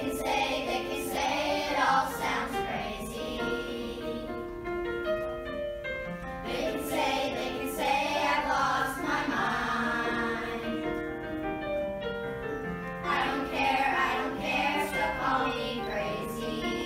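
Background music with a group of voices singing over held instrumental notes; the singing comes in stretches, with a few seconds of accompaniment between them.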